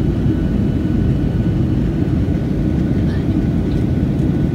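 Steady low rumble of a jet airliner's engines and airflow as heard inside the passenger cabin.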